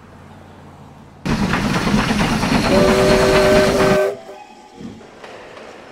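Steam locomotive releasing steam with a loud hiss that starts suddenly about a second in. Partway through, its whistle sounds a steady chord of several notes for about a second, and both hiss and whistle cut off together about four seconds in.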